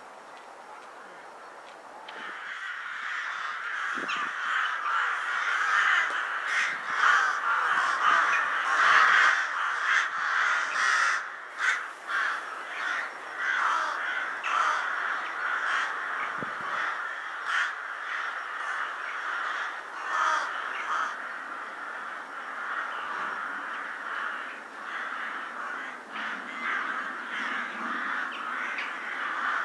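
A large flock of rooks cawing, a dense chorus of many overlapping calls that grows much louder about two seconds in and keeps going.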